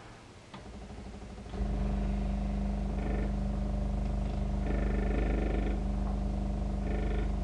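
Elna electric sewing machine running: a fast, light mechanical rattle that swells about a second and a half in into a steady low motor hum with rapid stitching chatter, while a higher whine comes and goes several times.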